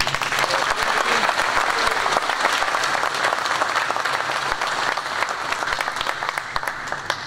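A large group applauding: many people clapping at once in a steady, dense patter, in a tiled indoor pool hall.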